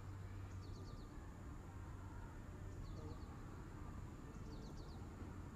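Faint small birds chirping, three short runs of three or four quick falling notes each, over a steady low hum.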